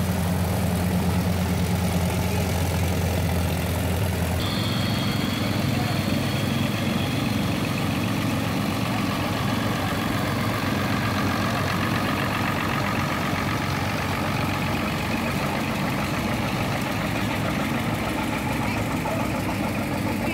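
Old farm tractors passing one after another at parade pace, their engines running slowly: a Ford, an International 560, then a John Deere pulling a hay wagon. A steady engine hum that shifts about four seconds in as one tractor gives way to the next.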